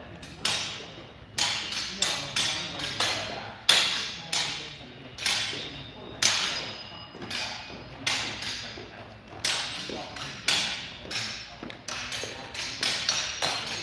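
Swords striking targets held out by training partners: an irregular series of sharp impacts, about two a second from several pairs at once. A few carry a brief metallic ring, and all echo in the big hall.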